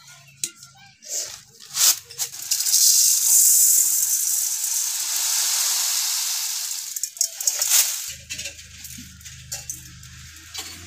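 Raw rice grains pouring off a bamboo winnowing tray into a metal pot, a steady hiss lasting several seconds, with a few knocks of the pot and tray before and after.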